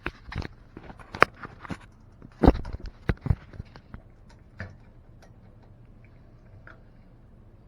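Irregular clicks and knocks for about the first four seconds, the loudest about two and a half seconds in, then only a faint steady hum.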